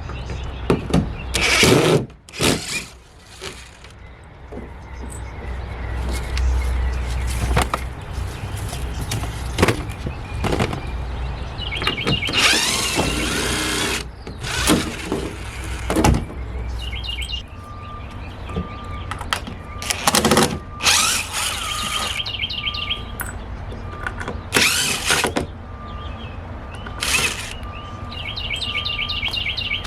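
Hand demolition of a makeshift scrap-wood structure: irregular sharp knocks, scraping and tearing as boards and material are pulled apart, with birds chirping at times.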